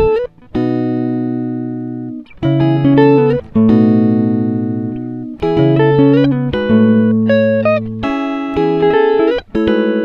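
Background music: a plucked-string melody, each note starting sharply and fading slowly, some of them sliding in pitch.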